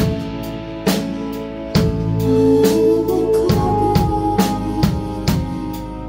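A live band plays an instrumental intro: a drum kit keeps a steady beat of a little over two hits a second under sustained bass and electric guitar. There are no vocals yet.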